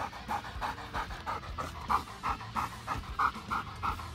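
German shepherd panting rapidly with its tongue out, about four breaths a second, as it recovers its breath after hard exercise.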